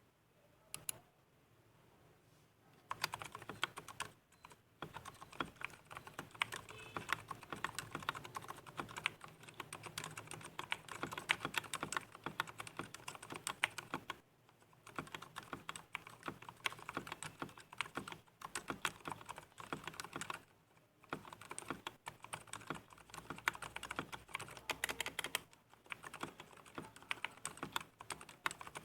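Continuous fast typing on an IKBC Poker II mechanical keyboard with Gateron Silent Red linear switches and stock PBT keycaps: soft, damped keystrokes in quick runs, stopping briefly a few times.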